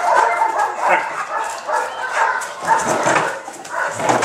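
Dogs barking and yelping in a rapid, unbroken run of short calls.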